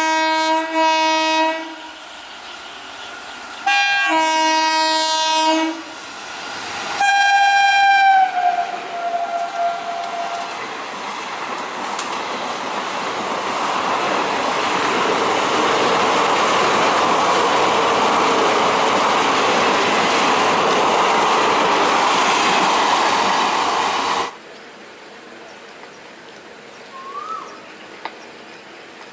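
Horn of a WAP-4 electric locomotive hauling an Intercity Express: three loud multi-note blasts in the first eight seconds, the last one falling in pitch as the locomotive passes. The train then rushes by at speed with a steady rumble and wheel clatter that swells and stops abruptly about 24 seconds in, leaving a quieter background with a few faint chirps near the end.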